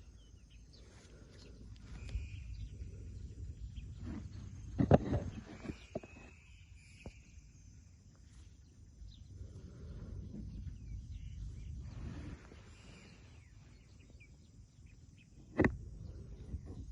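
Outdoor rural ambience with faint, short bird chirps over a low rumble, broken by a sharp knock about five seconds in and another near the end.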